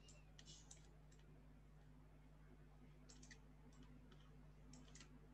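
Near silence: faint clicks from a computer mouse, in small clusters, over a low steady hum.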